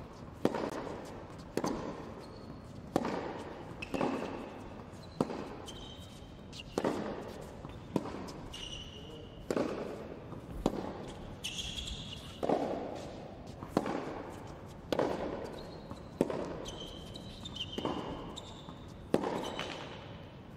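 Tennis rally on an indoor hard court: racquet strikes on the ball and ball bounces, a sharp pop about every second, each ringing briefly in the hall. Short squeaks from shoes on the court come between some of the hits.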